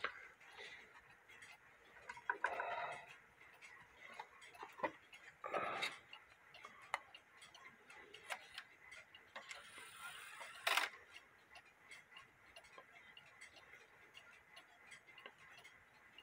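Weight-driven movement of a WUBA Warmink Dutch wall clock ticking faintly and steadily, freshly reinstalled in its case. A few louder rustles and knocks from hands at the clock break in, the sharpest a click about eleven seconds in.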